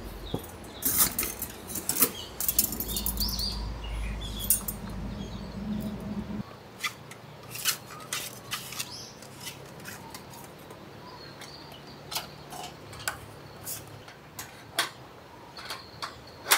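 Light metallic clicks and clinks of a folding stainless-steel fire pit being put together: its thin rod legs slid out and fitted into the frame, and the thin fire-stained steel pan handled and set onto it.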